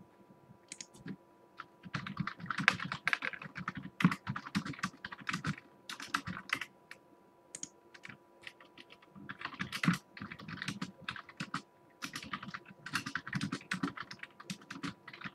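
Typing on a keyboard: bursts of quick key clicks with short pauses between them, starting about two seconds in.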